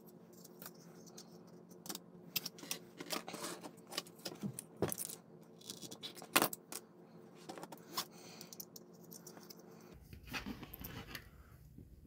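Hard plastic model parts and a plastic bar clamp being picked up and handled on a workbench: a run of small clicks, taps and clatters, with a louder knock about six seconds in.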